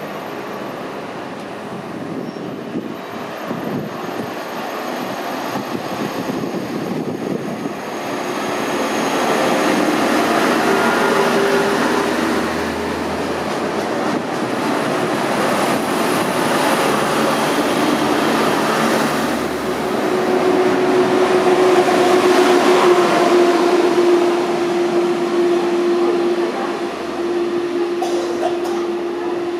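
Red electric multiple unit running along a station platform: wheels rumbling on the rails, swelling as it draws level, with a steady electric whine that grows stronger in the second half.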